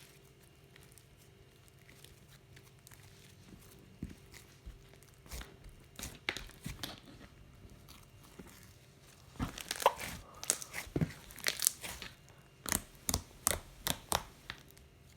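Slime being handled: soft squishing at first, then from about halfway a quick run of sharp sticky pops and clicks, roughly two a second.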